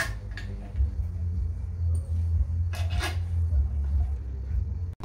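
Bolts being started by hand into an engine's timing cover: two short metallic clinks about three seconds apart over a steady low hum.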